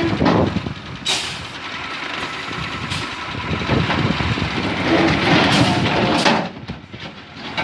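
Heavy truck engine running, with a short burst of hissing about a second in and a longer hiss later on.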